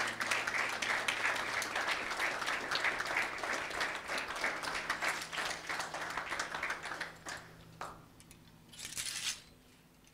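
Audience applauding, the clapping dying away about seven and a half seconds in.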